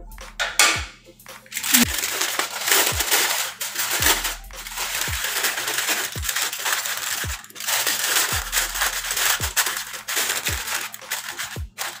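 Aluminium foil crinkling and crumpling loudly as it is folded and pressed over a roasting pan. Background music with a deep thumping beat about once a second runs underneath.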